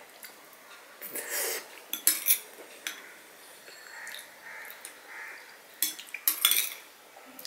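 Metal spoon clinking and scraping against a bowl as rice pudding (payesh) is scooped up, in sharp clicks about a second in, around two and three seconds, and a quick cluster near the end. Softer wet eating sounds come in between.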